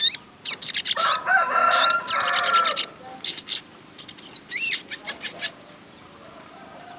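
Sogon songbird calling: a loud, rapid burst of sharp chattering notes and high chirps, then scattered single chirps and short rising notes that stop about five and a half seconds in.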